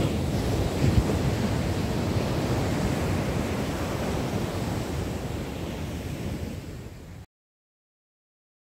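Ocean surf breaking and washing onto a sandy beach, a steady rush that fades out and cuts to silence about seven seconds in.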